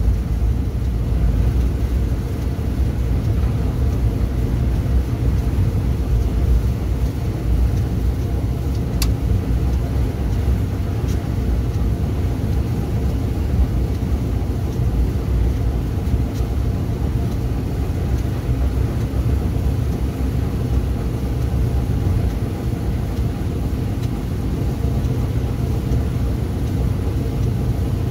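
Strong dust-storm wind buffeting the microphone as a loud, uneven low rumble, with a faint steady hum underneath.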